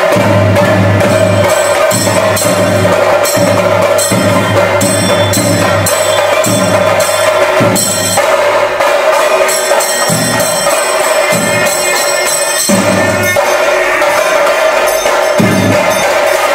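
Ritual percussion music: drums and small cymbals struck in a quick, steady rhythm over a sustained held tone, loud throughout.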